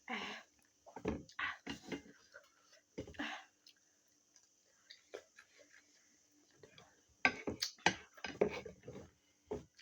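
Close-miked eating of spicy noodles: short bursts of slurping and chewing with pauses between, and a quick run of sharper mouth clicks and smacks near the end.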